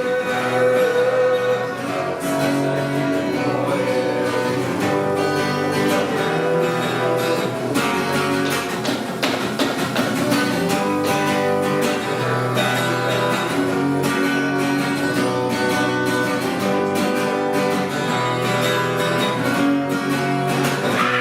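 Acoustic guitar playing an instrumental passage of a song, plucked and strummed chords with no singing.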